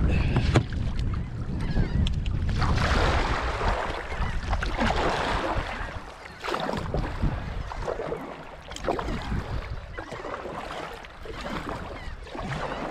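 Kayak paddle splashing and water sloshing around a kayak stuck in very shallow water, with a few sharp clicks and knocks. Wind rumbles on the microphone over the first couple of seconds.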